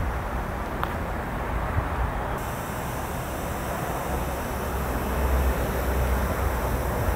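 Steady low rumble of heavy-vehicle engines running, swelling slightly around five seconds in.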